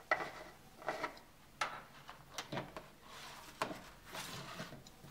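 Filament spool being handled on its spool holder: scattered light clicks and knocks of the spool turning and shifting on the holder.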